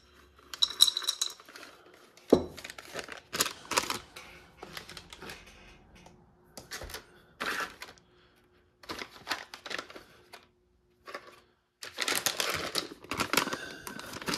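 Plastic ration packets being handled and rustled, with scattered sharp clicks and taps and a denser crinkling near the end.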